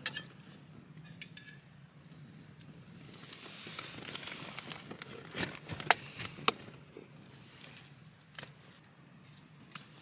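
Plastic cooking-oil bottle handled over a pot on a camp gas stove: sharp clicks and knocks of its screw cap, the loudest about six seconds in, with a soft hiss swelling in the middle.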